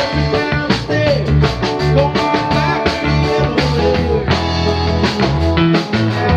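Live rock band playing an instrumental jam: an electric guitar lead with bending notes over bass guitar and a drum kit beat.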